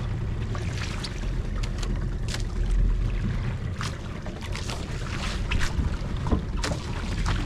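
Small fishing boat under way: its motor runs with a steady low rumble, with wind buffeting the microphone and repeated short splashes of water.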